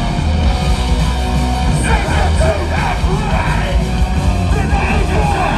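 Hardcore band playing live at full volume, with vocals coming in over the band about two seconds in.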